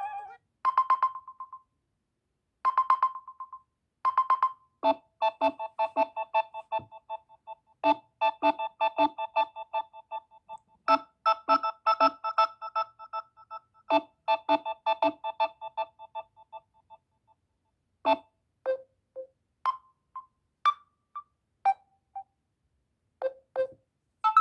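Samsung Galaxy A71 stock ringtone melodies. First come three short bell-like electronic phrases, then a quick repeating melody of plucked notes for about twelve seconds, then a few sparse single notes, with short silences between.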